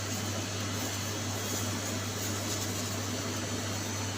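Steady mechanical hum and hiss of shop equipment, with a constant low drone and no distinct events.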